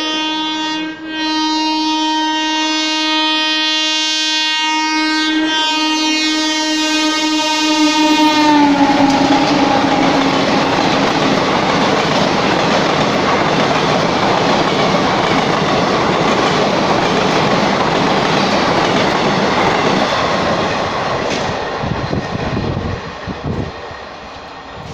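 WAP-4 electric locomotive's horn sounding long and continuously on the approach, with one short break about a second in. At about eight seconds the horn drops in pitch as the locomotive passes, then gives way to the steady rush of the express coaches rolling through at speed, which fades over the last few seconds.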